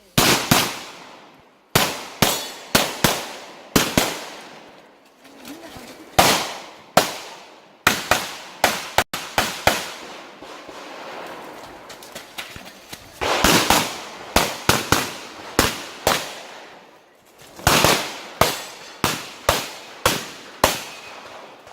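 Rapid pistol fire from an Open-division STI 2011 competition pistol: a long string of sharp shots in quick pairs and short runs, broken by several pauses of one to three seconds.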